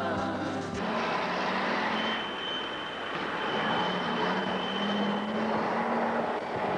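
Motor-vehicle traffic noise, a steady rush with a thin high whine through the middle. Music cuts off under a second in.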